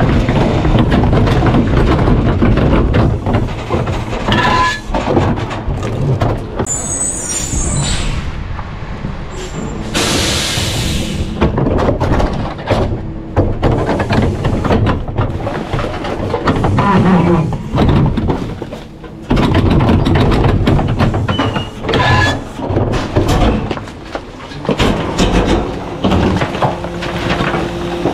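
Rear-loader garbage truck working: the engine running under a steady rumble with repeated metal clanks and knocks, and a loud air hiss about ten seconds in.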